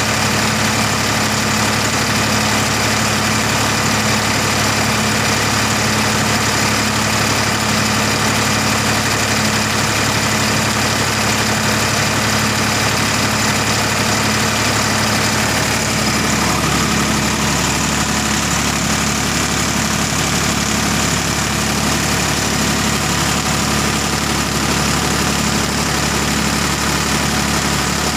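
Tractor engine running steadily, driving a belt-driven generator through its pulley; the engine note shifts about sixteen seconds in.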